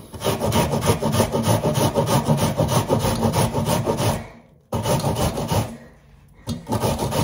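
An onion being rubbed back and forth on a hand grater, quick rasping strokes about five a second. The strokes stop briefly after about four seconds and again near six seconds.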